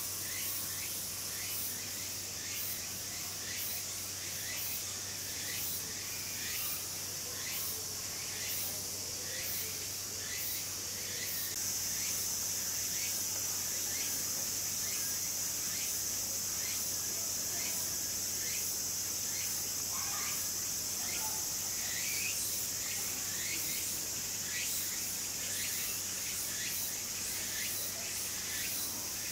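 Insects chirping and buzzing: a steady high buzz that grows louder about eleven seconds in, with short high chirps repeating about twice a second, over a steady low hum.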